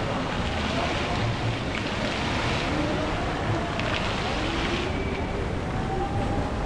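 Fountains spraying: a steady rush of falling water.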